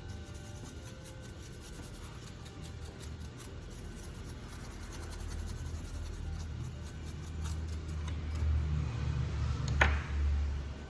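Small scratching and clicking sounds of tools and parts being handled at a workbench. A low rumble of handling noise builds up in the second half, and there is one sharp knock near the end.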